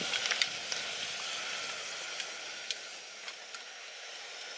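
Steady hiss of a pot of pork miso soup cooking on a camp stove, with light clicks of chopsticks against the aluminium pot as it is stirred, most of them in the first second.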